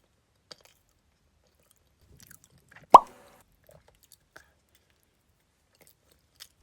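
Quiet eating: faint mouth clicks and chewing, with one sharp, loud pop about three seconds in.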